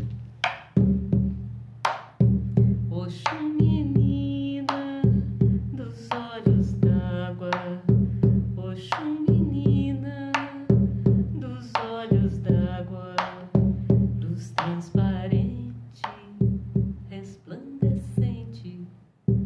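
Shamanic frame drum struck with a padded beater in a steady, even beat, under a woman singing a slow melody.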